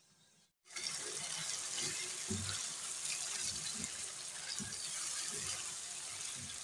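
Chicken pieces sizzling in hot oil in a non-stick pan, a steady hiss that starts suddenly about half a second in, with a spatula scraping and knocking against the pan as the pieces are stirred.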